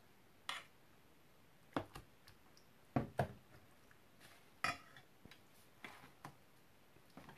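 Scattered knocks and clicks of kitchen containers and utensils being handled while kimchi sauce is worked into cabbage, the loudest pair about three seconds in.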